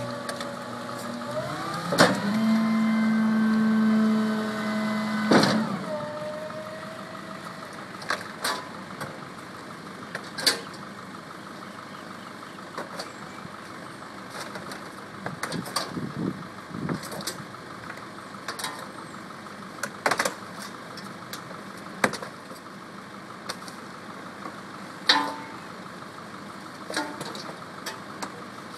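Small rear-loader garbage truck's engine rises to a steady, louder whine for about four seconds near the start, then settles back to idling. Sharp knocks and thuds come scattered through it as trash bags and refuse are dropped into the rear hopper.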